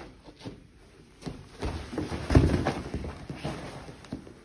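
A tackle onto padded training mats: a few light steps, then thuds and scuffling as two bodies go down and grapple on the vinyl-covered mats, loudest a little over two seconds in.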